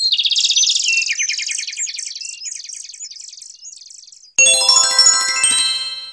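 A rapid, high-pitched twittering trill that fades away over about four seconds, then a sudden bright chime chord that rings and dies away.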